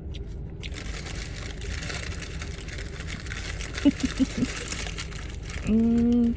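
Steady low rumble inside an idling car, with a rustling hiss from about half a second in and a few short voice sounds. Near the end comes a loud, steady hummed "mmm".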